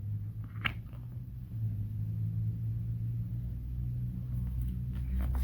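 Steady low hum, with one sharp click a little under a second in and a few faint clicks near the end.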